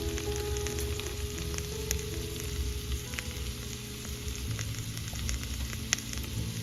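Potatoes and onion frying in oil in a skillet: a steady sizzle with scattered small pops and crackles.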